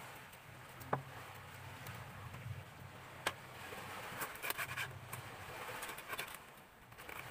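Kitchen knife cutting fresh ginger on a cutting board, over a steady low hum. There are a couple of single sharp clicks while the root is being peeled, then from about four seconds in a run of quick taps as the blade slices through onto the board.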